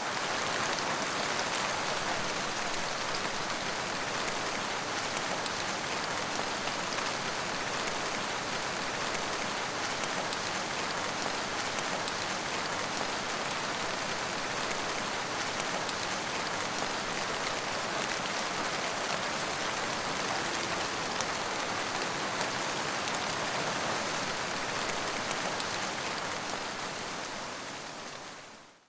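Steady rain falling, a dense even hiss of drops on surfaces, fading out near the end.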